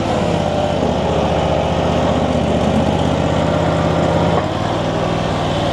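Engine of an Infront YF380 mini skid steer running steadily while the machine works dirt, its note shifting slightly about a second in and again near the end.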